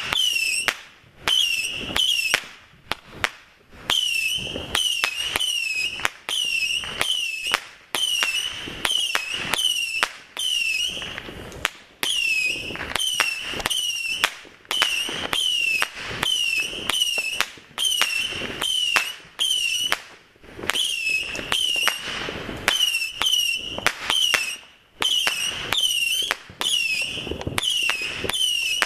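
Ground firework burning on and on, giving off a rapid string of short, high whistles, about two a second, mixed with sharp crackling pops, with only brief breaks.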